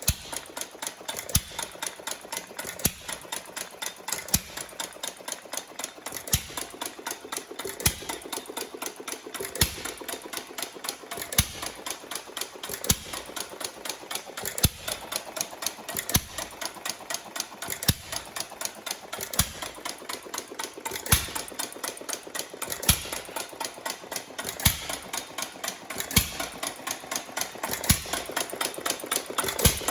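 New Holland 1/2 hp hit-and-miss engine running, firing with a knock about every second and a half to two seconds, with rapid mechanical clicking as it coasts between firings.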